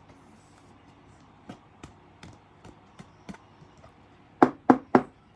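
Light ticks and clicks of trading cards being handled, then three sharp knocks in quick succession near the end, like a card stack being tapped on a tabletop.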